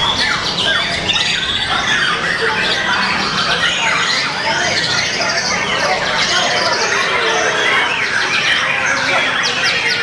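White-rumped shama (murai batu) singing a dense, continuous run of rising and falling whistles and chirps.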